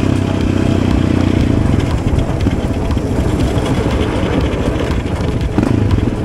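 Yamaha Raptor 700 ATV's single-cylinder four-stroke engine running while being ridden, its note shifting as the throttle changes.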